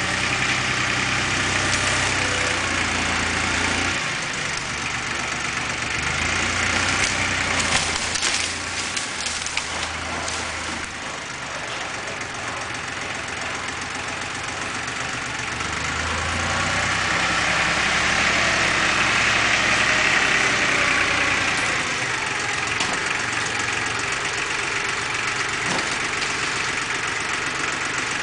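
Lenar FS 254 II compact diesel tractor running as it drives about with its front loader. The engine grows louder twice and eases off in between.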